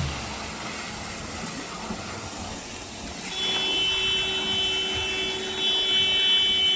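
Construction machinery running with a steady mechanical noise. About three seconds in, a steady high-pitched tone comes in and holds for about four seconds, growing louder near the end.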